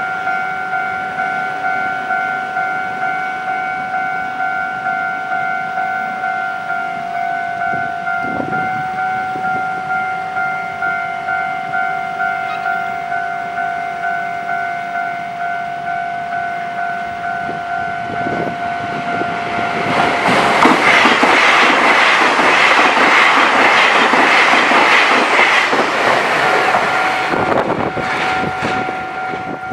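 Railway level-crossing warning bell ringing in a steady, evenly repeating ding. About twenty seconds in, a train passes the crossing at speed with loud rushing and wheel noise that drowns the bell for several seconds. The bell is heard again near the end.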